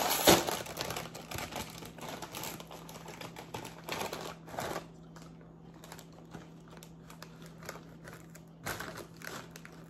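A chip bag being handled, crinkling and rustling in irregular crackles, busiest in the first half, thinning out, then a short flurry again near the end.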